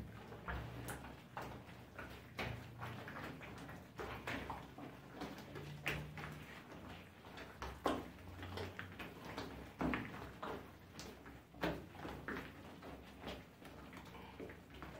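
Dough for pan mantecado (flour, shortening, eggs, water and yeast) being mixed, with irregular soft knocks and short scraping or rubbing sounds.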